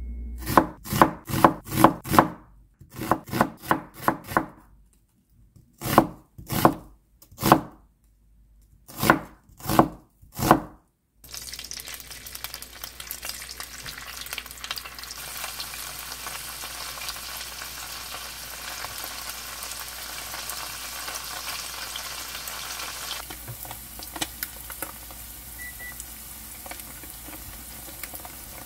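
In the first ten seconds or so, sharp knocks come in groups of three to five. About eleven seconds in they give way suddenly to the steady sizzle of tofu slabs frying in oil in a non-stick pan, which eases somewhat later on.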